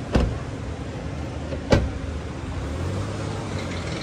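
Two car doors slammed shut about a second and a half apart, the second louder, over a car's steady low running rumble.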